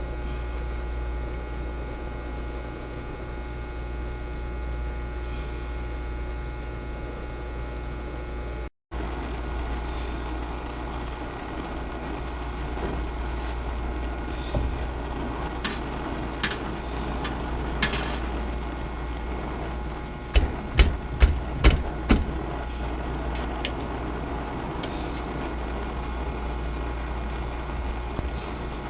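Steady low machinery hum with a few steady tones over it, broken by scattered clicks and then a quick run of five sharp knocks about two-thirds of the way through.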